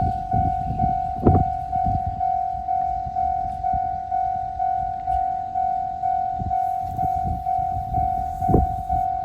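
Japanese level-crossing warning bell ringing steadily at about two strokes a second while a train rumbles past, its wheels clacking over rail joints several times.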